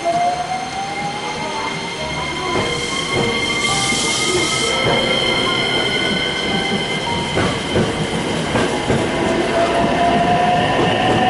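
Train running and gathering speed, with a motor whine that rises slowly in pitch over several seconds. A brief hiss comes about three to four seconds in.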